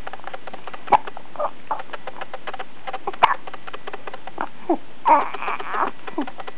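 Hiccups: two sharp hics about two seconds apart, then a few short falling squeaks and a breathy rush, over a faint, fast, even ticking.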